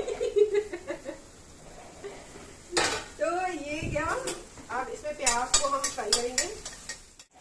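Chopped onion scraped off a steel plate into a metal kadhai of hot oil, then a metal spatula stirring and clattering against the pan, with repeated sharp clinks of metal on metal.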